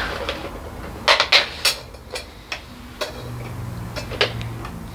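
Shoe-rack poles clicking and clattering against each other and against the plastic frame as they are picked up and pushed into its holes: a quick cluster of clicks about a second in, then a few scattered single knocks.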